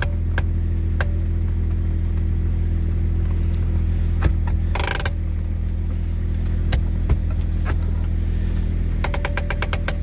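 Jeep Grand Cherokee ZJ engine idling steadily, heard from inside the cabin. A few scattered clicks and a short rustle about five seconds in sit over the idle, and a quick run of about eight clicks comes near the end.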